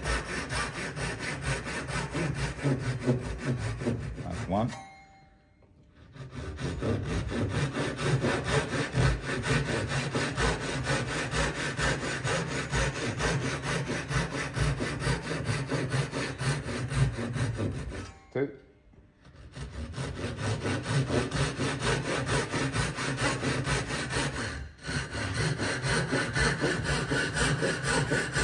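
Japanese pull saw cutting wedges from a timber offcut held in a bench vise, in quick, steady strokes, pausing twice for about a second.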